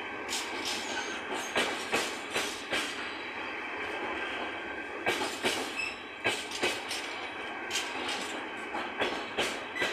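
Intermodal container wagons of a freight train rolling past, wheels clacking over the rail joints in quick groups of sharp strokes over a steady rumble.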